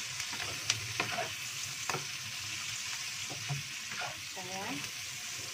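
Anchovy stir-fry sizzling in hot oil in a non-stick wok with a steady hiss, as a wooden spatula stirs it, knocking and scraping against the pan several times. The ingredients are being stirred until evenly mixed.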